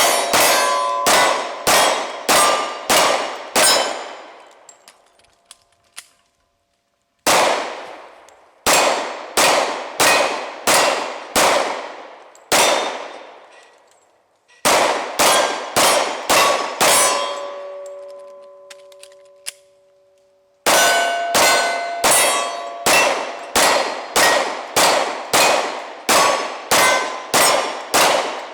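Glock 27 .40 S&W pistol fired in rapid strings of about two shots a second, each shot answered by steel targets ringing. There are four strings with short pauses between them; after the third string a steel gong rings on for about three seconds.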